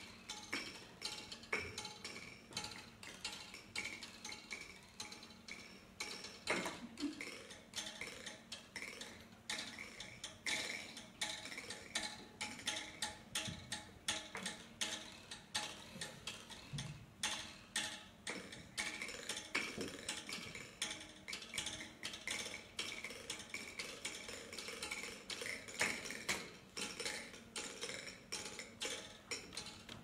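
Live percussion: a quiet, dense run of quick light taps and clicks, several a second in an uneven rhythm, with a wooden, wood-block-like character.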